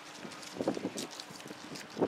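Wind on the microphone with a scatter of soft, irregular knocks and clicks.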